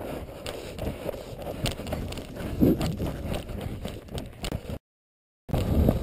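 A runner's quick footfalls on a rocky dirt trail, with the rubbing and knocking of a body-worn camera, in sped-up footage. The audio cuts out completely for about half a second near the end.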